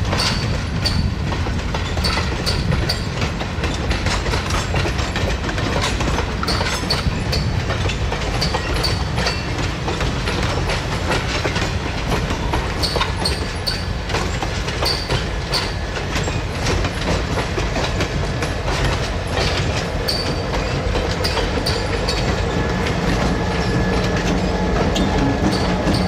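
Passenger train rolling past, its wheels clicking steadily over the rail joints with brief high wheel squeals, and a low hum building near the end.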